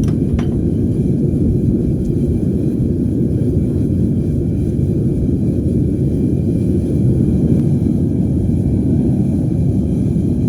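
Two burners firing into a homemade melting furnace: a steady, loud, low roar of the flames that holds even throughout. A couple of faint clicks come near the start.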